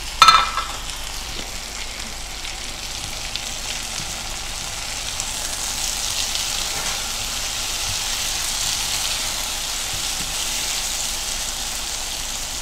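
Sliced shallots, garlic, chilies, tomato and galangal sizzling in hot oil as they are stir-fried with a silicone spatula, the sizzle a little louder in the middle. A brief high-pitched sound just at the start is the loudest moment.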